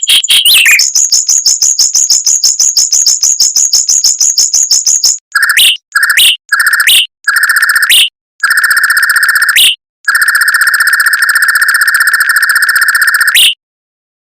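Mockingbird singing rapid rolling trills: a fast high trill of about nine notes a second for roughly five seconds, then four short rolls and one long, lower-pitched rolling rattle.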